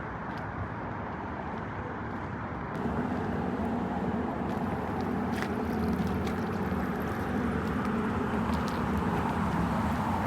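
Steady running noise of a vehicle, with a low engine hum that grows louder after a sudden change about three seconds in.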